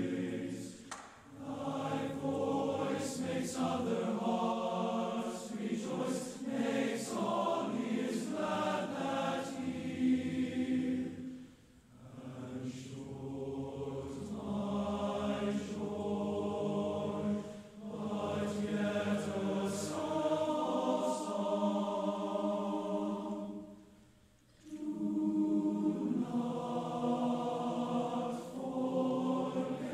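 Large tenor-bass choir of young men's voices singing a slow piece in sustained chords. The long phrases are broken by four brief pauses, and the full choir comes back in after each one.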